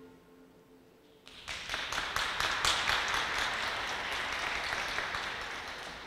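A choir's final held chord dies away, then about a second in an audience starts applauding, the clapping tapering off near the end.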